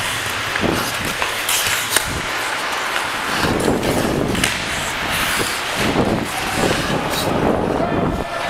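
Hockey game in play: a steady scraping hiss of skates with scattered sharp clacks of sticks and puck.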